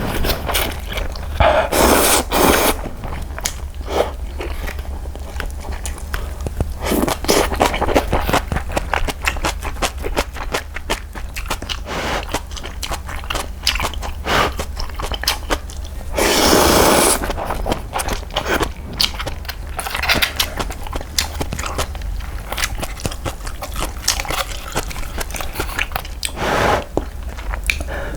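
Close-miked eating of cup ramen: steady chewing with many wet clicks and crunches, broken by loud slurps of about a second each, near 2 s, 17 s and 27 s.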